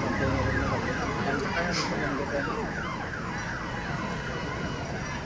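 A large crowd of football spectators shouting and calling out all at once, many voices overlapping in falling calls over a steady background rumble.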